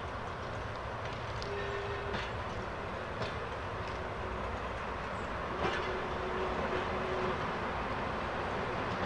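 DE 520 diesel-electric locomotive propelling two coaches slowly over station tracks: a steady engine and rolling rumble that grows slightly louder as it approaches, with several sharp wheel clicks over rail joints and points and a couple of faint brief wheel squeals.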